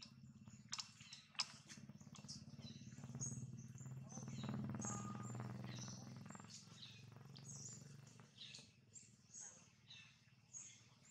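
Faint forest ambience: short high bird chirps scattered over a low steady hum that swells briefly in the middle, with a few sharp clicks in the first second and a half.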